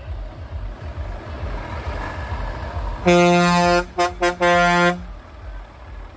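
Truck air horn blowing over a low rumble: one blast about three seconds in, two quick short toots, then another half-second blast.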